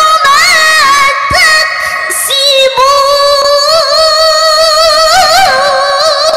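A female Quran reciter's high voice in melodic tilawah, drawing out long held notes with quick ornamental turns and trills. There is a short break about two and a half seconds in, and a run of fast trills near the end.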